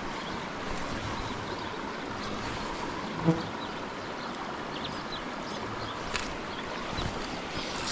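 Steady rush of river water flowing past. About three seconds in there is one short pitched blip, and a few faint high ticks follow later.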